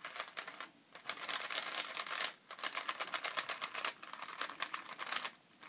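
GAN 356 X 3x3 speed cube being turned, making quick runs of plastic clacks with short pauses between them. Its owner still finds it slow to turn.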